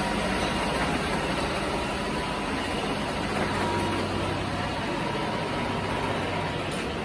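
Fire engine's engine idling steadily.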